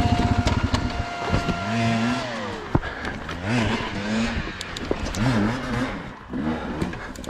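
Enduro motorcycle engine revving up and down in short throttle bursts, with scattered sharp knocks.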